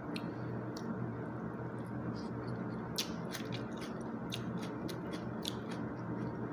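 A person chewing food with the mouth close to the microphone, with scattered small clicks and smacks, over a steady background hum.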